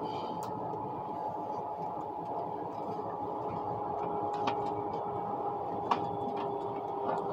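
ICE high-speed train running at speed, heard from inside the passenger car: a steady rolling rumble with a steady hum and a few light clicks.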